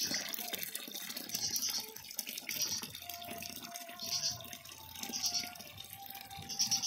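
Spring water pouring steadily from a bamboo spout and splashing onto stone. A short high chirp repeats about once a second.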